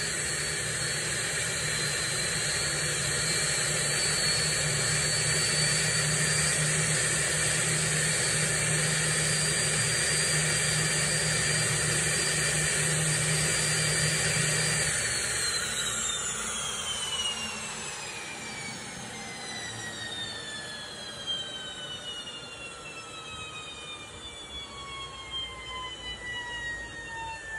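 Turbomeca Turmo III C6 turboshaft engine running with a steady high whine. About halfway through it is shut down: the whine falls steadily in pitch and the sound gets quieter as the turbine winds down.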